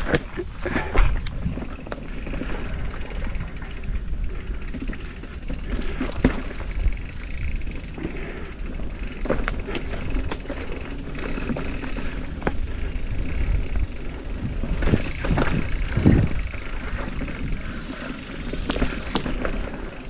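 Full-suspension mountain bike ridden over a rough dirt trail: a steady low rumble of tyres and air, broken by frequent knocks and rattles as the bike goes over bumps, the hardest about a second in and again near 16 seconds.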